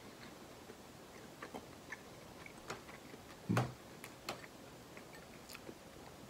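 Quiet chewing and small mouth clicks while eating cooked crab meat, with light ticks of fingers picking through the meat in a glass bowl. A louder click comes about three and a half seconds in, and a smaller one shortly after four seconds.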